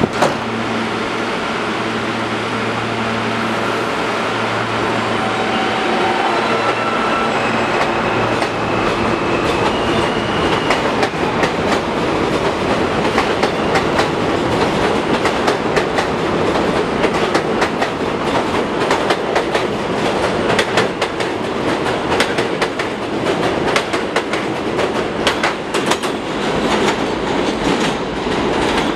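R160 subway train pulling out of the station: the traction motor whine climbs in pitch in steps as it accelerates, then a rapid clatter of wheels over rail joints as the cars run past.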